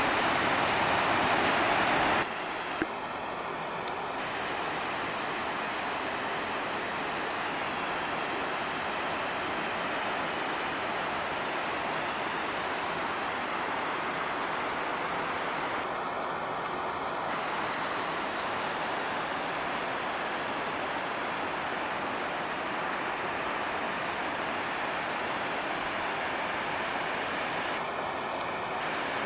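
Oceana Falls rushing steadily: the even noise of a waterfall pouring into a deep pool. It is a little louder for the first two seconds, then holds steady.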